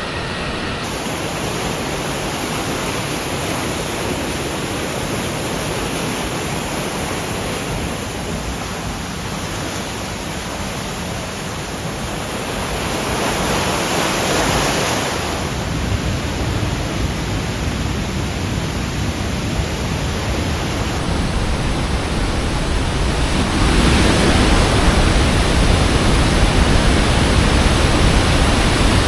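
Li Phi (Somphamit) Falls on the Mekong, flowing strongly: a steady rush of heavy water that grows louder about halfway through and louder still near the end.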